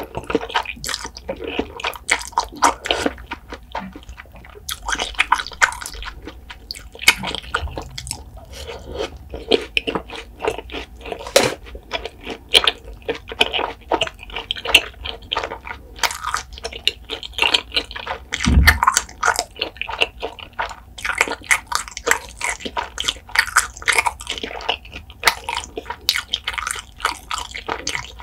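Close-miked eating of spicy carbonara instant noodles: a mouthful slurped off chopsticks, then chewed with many quick, irregular smacking clicks of the mouth.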